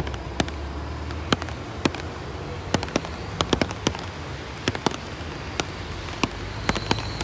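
Firecrackers going off in sharp, irregular cracks, two or three a second, over a low steady rumble.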